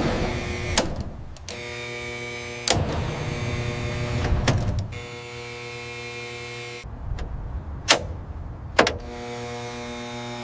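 Workshop sounds in short spliced segments: a small electric motor or power tool running with a steady hum, broken by sharp clicks and knocks where the sound changes abruptly.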